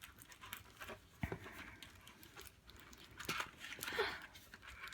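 Faint handling noise: a few light clicks and soft rustles, typical of the kit's pieces and plastic packaging being handled.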